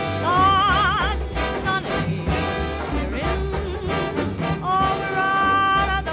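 A woman's voice singing a swing ballad over a big band with brass, holding two long notes with a wide vibrato, one just after the start and one near the end.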